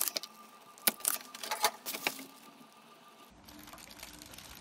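A few sharp clicks and taps from handwork on an amplifier's circuit board while a resistor is being desoldered. About three seconds in they give way to a faint steady hum.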